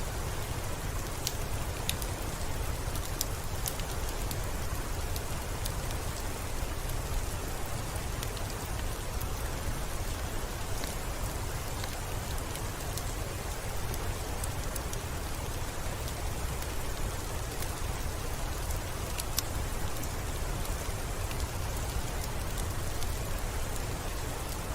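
Steady rain falling, with a low rumble underneath and scattered faint sharp ticks.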